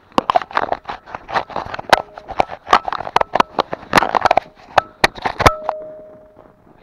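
Handling noise on a body-worn action camera: clothing fabric rubbing and knocking against the microphone in a quick run of rustles and sharp clicks, with a short steady tone near the end.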